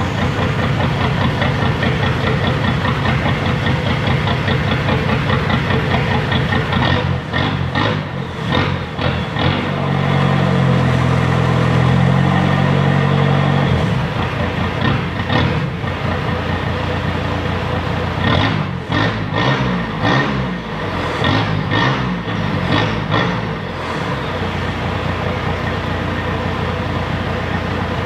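Isuzu TFR 2500 pickup's 2.5-litre four-cylinder diesel engine running through an exhaust cut to exit ahead of the rear axle. It idles, is held at higher revs for a few seconds near the middle, gives a run of short revs after that, then settles back to a steady idle.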